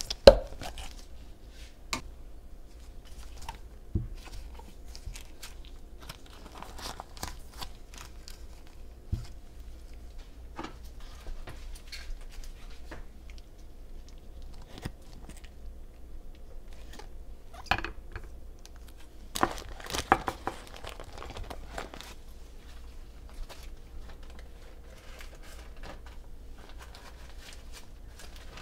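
Kitchen handling noise: scattered light taps and clicks with some crinkling, and a louder clatter of several knocks about eighteen to twenty-one seconds in.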